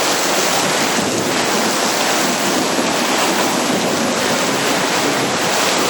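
Torrential rain coming down in a loud, steady rush of water.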